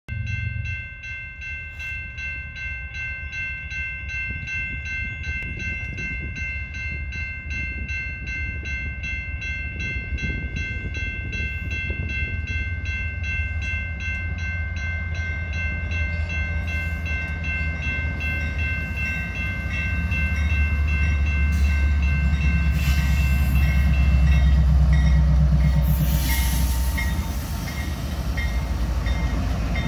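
Railroad crossing bell ringing in a steady, rapid beat while a CSX diesel freight locomotive approaches; the engine's low rumble grows louder and is loudest about three quarters of the way through as the locomotive passes the crossing, with a hiss of wheel noise near the end.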